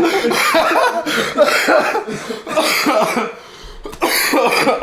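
A man's harsh, brutal cough: a string of loud coughs, a short pause, then one more cough near the end.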